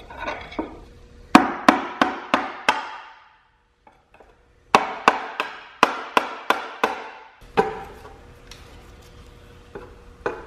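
Hammer blows on a pry tool set against a valve cover of a Porsche Cayman M97 engine, trying to break the stuck cover free of its seal. The sharp metallic strikes come about three a second, each ringing briefly: a run of five, a short gap, then a run of about eight.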